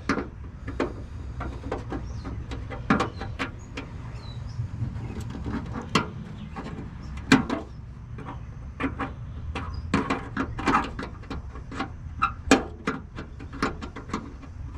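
Irregular sharp clicks and snaps of gardening clippers cutting into brittle, aged plastic of a car's running light housing, with the dried-out plastic cracking and breaking apart, over a steady low rumble. The loudest snaps come about 7 seconds and 12 seconds in.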